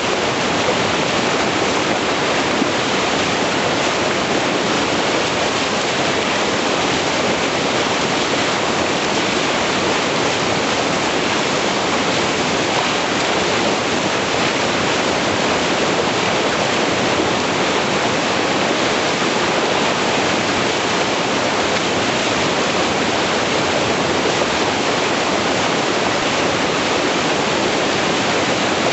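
Steady rush of whitewater from a breaking standing wave in a river rapid.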